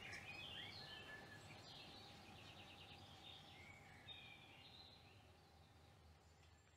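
Small birds chirping and twittering faintly, with short rising and falling calls and a quick trill about two and a half seconds in, over a low steady background hum. The whole sound slowly fades toward the end.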